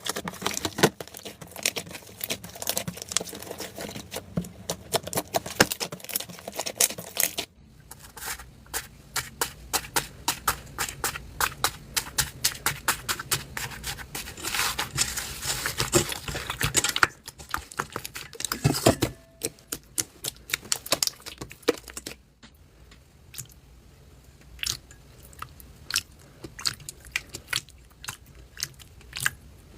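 Slime being squeezed and pressed by hand, giving dense runs of crackling, popping clicks. The sound changes abruptly about 7, 17 and 22 seconds in, becoming sparser and quieter in the last part.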